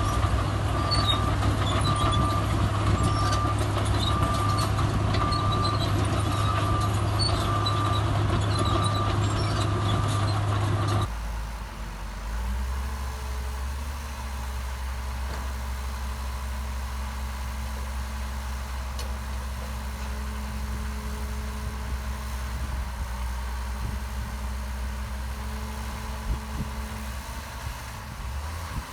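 Heavy diesel earthmoving machinery running loudly, with a reversing alarm beeping a little more than once a second. About eleven seconds in, the sound cuts suddenly to a quieter, steady low engine drone with fainter beeping.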